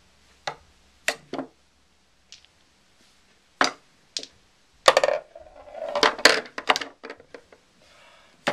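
Balls on a tabletop mini pool table: a few sharp, separate clacks of cue and ball strikes, then a busier run of clattering and rattling from about five seconds in as the balls knock together and drop into the pockets and return tray.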